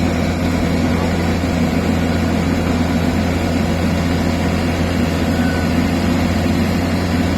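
Diesel engine of farm machinery, a tractor or rice harvester, running steadily at a constant speed with a low, even drone.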